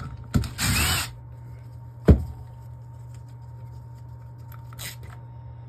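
Hand tools being handled while a 10 mm socket is fitted: a short metallic rattle near the start, a sharp click about two seconds in, and a fainter click near the end, over a steady low hum.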